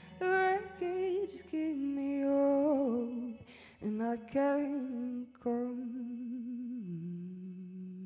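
Female voice singing a slow, wavering melody with vibrato, in short phrases broken by breaths, settling on a long, steady low note near the end.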